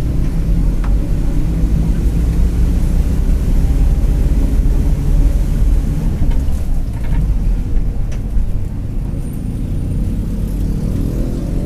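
Mercedes-Benz OF-1721 BlueTec 5 bus under way, its diesel engine and drivetrain giving a steady low drone with a few light knocks, and the differential growling.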